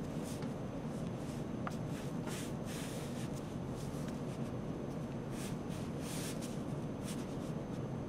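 Ink-loaded Chinese painting brush dragged across paper: a few soft swishes over a steady low room hum.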